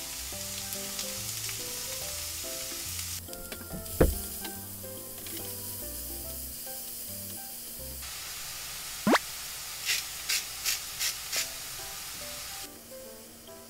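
Chopped onion and chili sizzling in hot olive oil in an aluminium frying pan while being stirred with a spatula, the sizzle strongest for the first few seconds. There is a sharp knock about four seconds in and a quick rising swish near nine seconds, then about six quick shakes of salt from a shaker over the onions.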